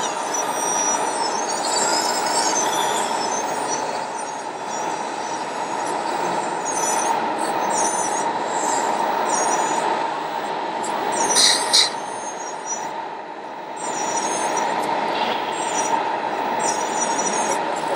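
Radio-controlled Liebherr wheel loader model working, with the steady whine of its electric motors and gearing and repeated short high squeaks. A louder squeal comes about eleven and a half seconds in.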